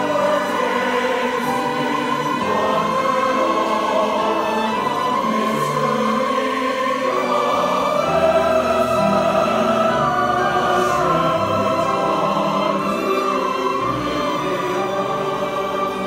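Mixed choir singing a Christmas piece, accompanied by violin.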